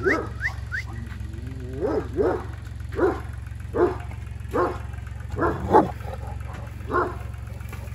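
A dog barking repeatedly, about one bark a second with short pauses, over a steady low hum.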